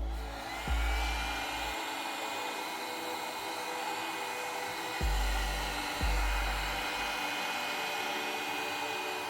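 Heat gun blowing steadily, its fan spinning up at the start with a thin whine that rises and then holds at a high pitch. A few short low thumps come through it.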